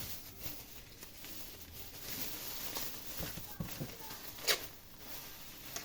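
Small cellophane bag and parchment paper rustling and crinkling as a potato compress is slipped inside, with one sharper crackle about four and a half seconds in.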